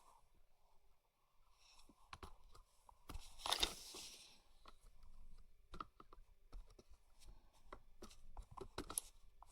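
Hands handling the pieces of a small bike repair tool kit: scattered light clicks and knocks, with a short, louder rustle about three and a half seconds in.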